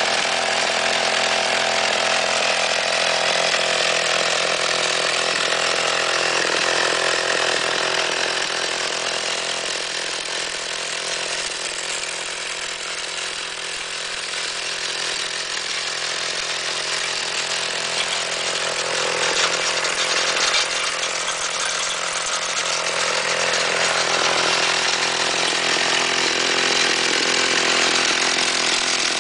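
Two-stroke chainsaw engine fitted to a motorized chopper bicycle, running steadily on the stand with the raised rear wheel turning through the chain drive, a little quieter for a few seconds around the middle. The gearing is too high for the engine, so it can barely idle.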